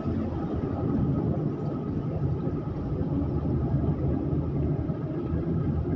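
Car driving at a steady pace, heard from inside the cabin: an even, low rumble of engine and tyre noise.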